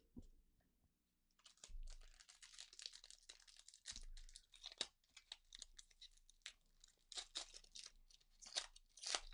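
Foil wrapper of a Pokémon booster pack being torn open and crinkled: a quiet, dense crackle with many small sharp snaps, starting about a second and a half in.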